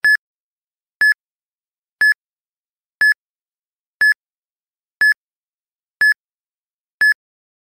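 Countdown timer beeping once a second: eight short, identical high electronic beeps, evenly spaced, ticking off the seconds left to answer.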